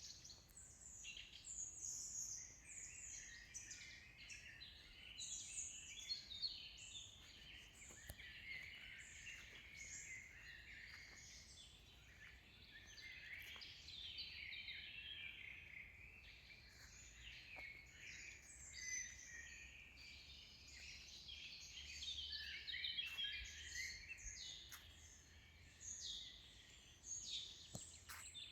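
Several birds singing at once, a dense chorus of quick high chirps and trills that overlap continuously.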